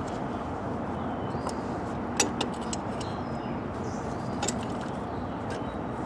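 Steady outdoor background hum with a few light clicks and knocks from a steel C-clamp and a wooden block being set against the brake caliper, ready to push the piston back into its bore.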